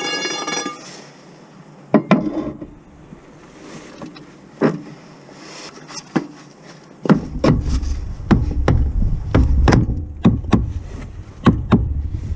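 A brief squeaky tone at the start, then scattered sharp knocks and clicks that come more often from about seven seconds in, over a low rumble.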